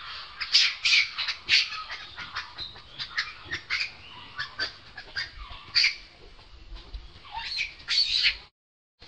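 Macaque squealing: a rapid string of short, high-pitched calls, loudest about a second in and again near the end, then cutting off suddenly.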